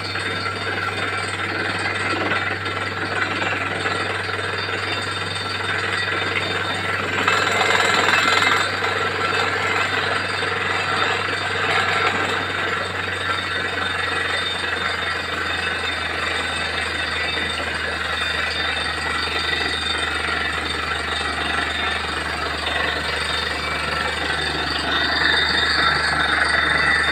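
Borewell drilling rig running steadily, its engine droning under a continuous rush of water and slurry flushed up out of the bore, with a brief louder surge about seven seconds in.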